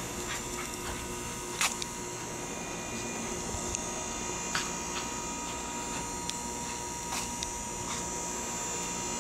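Steady electronic hum from the video camera itself, with a thin constant whine, and a few light scattered clicks from handling.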